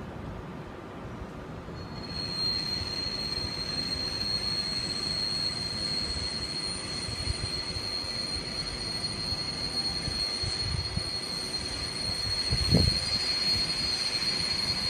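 Steel train wheels squealing on the rails as a passenger train moves slowly. A steady high squeal starts about two seconds in over the low rumble of the rolling train, and there is a single thump near the end.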